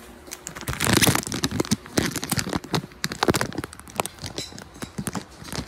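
Plastic instant-noodle packet crinkling and rustling right against the microphone in irregular crackles, loudest about a second in.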